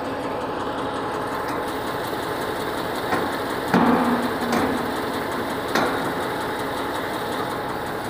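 Steady drone of an engine idling, with a few sharp metal knocks about three, four and six seconds in, the loudest near four seconds with a brief ring, as the steel external line-up clamp is shifted against the pipe during fit-up.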